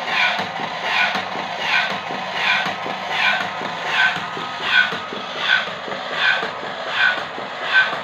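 Homemade ventilator mechanism running: a DC gear motor drives a slider and paddle that rhythmically squeeze a bag-valve resuscitator bag, with a short falling squeak about every three-quarters of a second over a steady motor hum.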